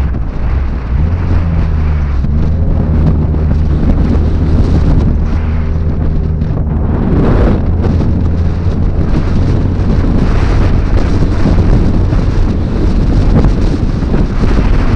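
Lifted two-wheel-drive Ford Econoline van's engine running with a steady low hum as it drives along a soft sand track, heavily buffeted by wind noise on the microphone.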